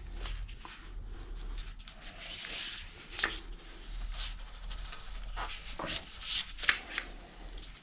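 Hands pressing a rim strip onto a spoked motorcycle wheel rim: rubbing and scuffing with scattered light taps and clicks.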